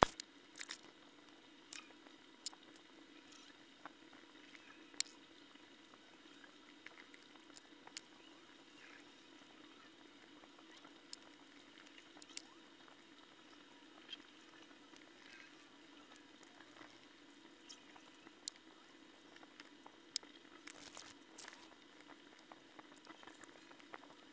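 Cloth-covered fingertip rubbing polishing paste over an aluminium-bronze Australian one-dollar coin: soft squishy rubbing with scattered sharp clicks, over a faint steady hum.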